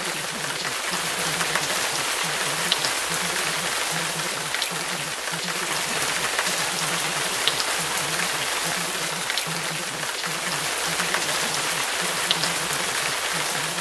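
Steady rain noise with scattered drop ticks. Underneath it a low murmur comes and goes in short stretches: the masked voice of the subliminal's repeated affirmations.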